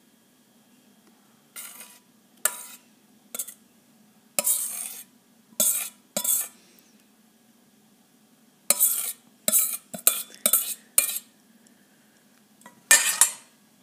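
A spoon scraping thick mascarpone cream out of a bowl into glass verrines, with clinks against the glass. It comes as about a dozen short scrapes separated by pauses, with a quick run of them a little past the middle.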